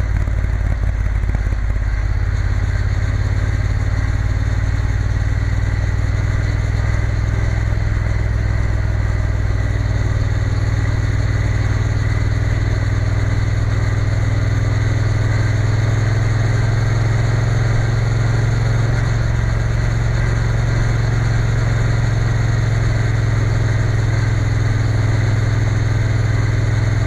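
Triumph Bonneville T120 parallel-twin motorcycle engine running steadily while the bike cruises along a road, heard from the rider's seat.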